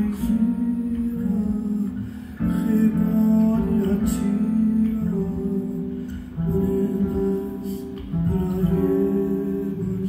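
Solo nylon-string acoustic guitar playing an introduction: plucked chords and single notes ring out, with new phrases beginning about two and a half and about six and a half seconds in.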